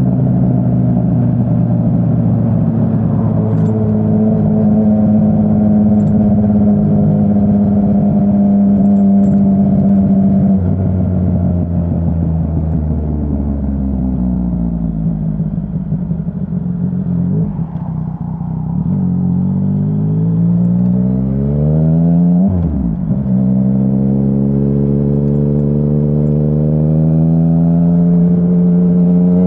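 Exhaust of a 2017 Yamaha Tracer 900's three-cylinder engine, through an aftermarket Dominator HP3 full exhaust system. It runs at a steady pitch for about ten seconds, then the revs drop and fall away for several seconds as it slows. It then accelerates with rising revs, broken by a quick gear change about three-quarters of the way through, and pulls up again.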